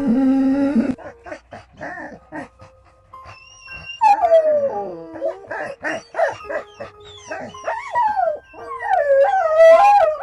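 Animal calls: a low drawn-out call in the first second, then a few scattered clicks, then from about four seconds in a run of high wavering cries that slide up and down in pitch, several overlapping, loudest near the end.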